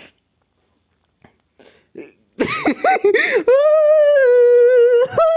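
High-pitched cartoon-style voice of a laughing Christmas tree character: a few faint breaths, then about a second of bouncing, pitch-jumping laughter, followed by a long held high note that sinks a little in pitch, and a short final note near the end.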